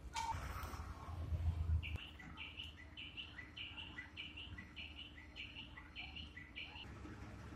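A small bird calling over and over, each call a higher note dropping to a lower one, about two calls a second for some five seconds, starting about two seconds in. Underneath, a low traffic rumble, loudest about a second and a half in.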